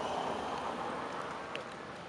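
Steady outdoor background hiss with no clear single source, easing slightly toward the end, and one brief high chirp about one and a half seconds in.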